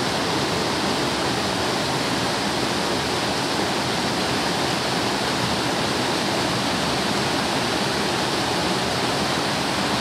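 Mountain stream rushing over rocks and pouring down a small cascade into a pool: a steady, unbroken rush of water.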